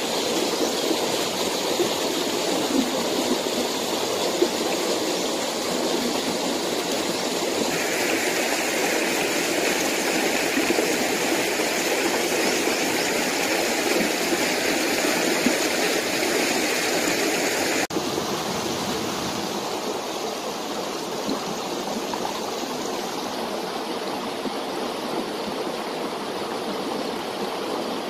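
Steady rush of a flowing river or stream over rocks. About two-thirds of the way through it switches abruptly to a slightly quieter, duller flow.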